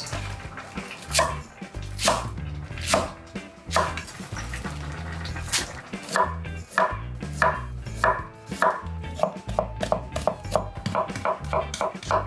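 Knife chopping on a cutting board, sharp knocks about one a second at first, then speeding up to several a second near the end.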